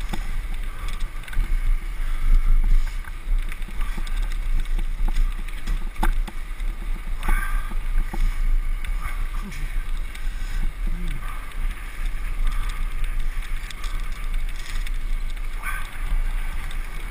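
Wind buffeting the microphone on a moving bicycle, with the tyres rolling on tarmac and a few sharp rattles and clicks from bumps in the road.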